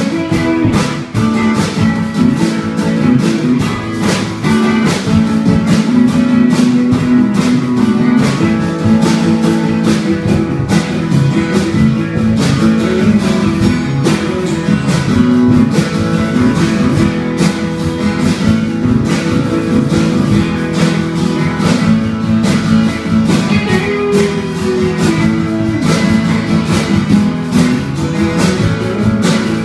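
Two electric guitars, a Les Paul-style and a Telecaster-style, played together through amplifiers: a continuous run of picked notes and chords.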